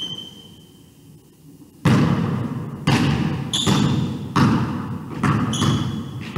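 A basketball dribbled on a hardwood gym floor, starting about two seconds in: about five bounces, a little over one a second, each echoing in the large hall. A few short high squeaks, like sneakers on the floor, come in among the bounces.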